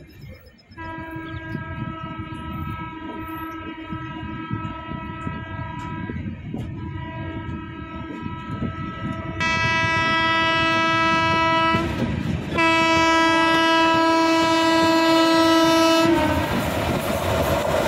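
Train horn blowing one long held note, with a short break about twelve seconds in, and louder from about nine seconds in. Near the end the horn stops and a loud rushing rail noise takes over.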